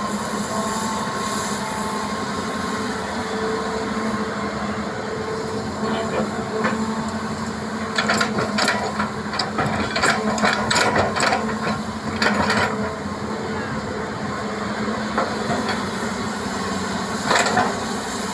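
Hitachi EX200 excavator's diesel engine running steadily under load, with a cluster of sharp clanks and rattles about halfway through and another near the end as it works loading soil into a dump truck.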